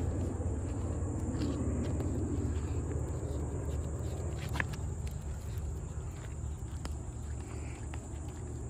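Footsteps on a paved path over a steady low rumble, with a constant high-pitched insect drone from the surrounding woods; a couple of sharp clicks about four and a half and seven seconds in.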